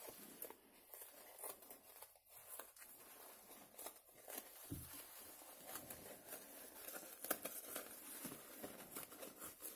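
Faint snipping and crinkling of scissors cutting through the elastic side gathers of a disposable diaper, its soft plastic and fabric layers rustling as it is handled.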